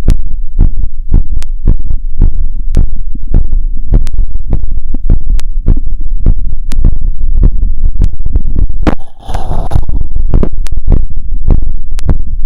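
Human heartbeat through a wired stethoscope, racing at about 150 beats a minute after a 2 km run: quick, evenly spaced lub-dub pairs over a steady low rumble. A brief rustling noise breaks in about nine seconds in.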